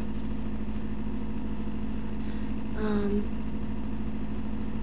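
Steady low electrical hum, typical of a cheap webcam microphone, with one short hummed vocal sound about three seconds in.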